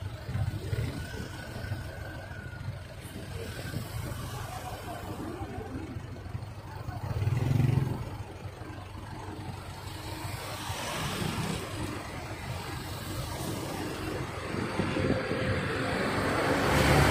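A convoy of police vehicles driving past one after another, engine and tyre noise swelling as each one passes close. A pickup goes by about halfway through, and a large truck passes close near the end, the loudest moment.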